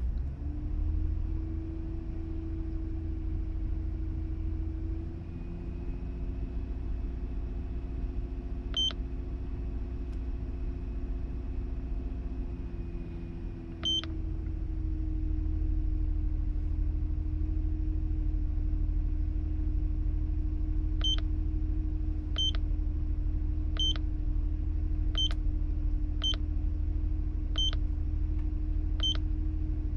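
A car engine running steadily at idle, heard from inside the vehicle, with short high electronic beeps: two single beeps, then a regular beep about every one and a half seconds through the second half.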